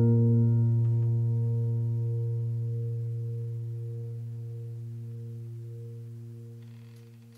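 Background music: one low keyboard chord, struck just before, rings on and slowly fades away.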